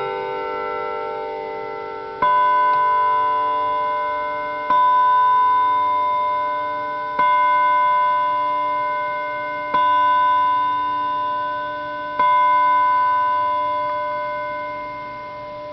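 GE Model 422 electric chime clock from about 1951, with a Revere movement. The last notes of its chime ring out, then it strikes the hour with five evenly spaced strokes on one tone, about two and a half seconds apart, each ringing down.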